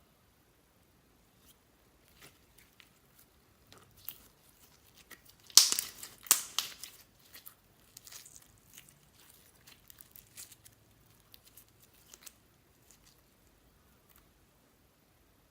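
Slime being worked by hand: irregular sticky crackles and small pops, with a loud cluster of them about a third of the way in, then scattered quieter crackles.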